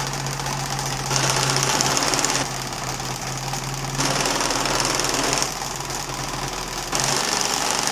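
Electric motor spinning a test drum, with the two rubber wheels of an aluminium RC jet main landing-gear leg rolling on it: a steady whirring hum with a hiss, louder in stretches of a second or so.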